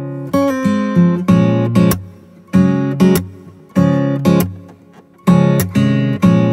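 Background music: an acoustic guitar strumming chords in a steady repeating rhythm.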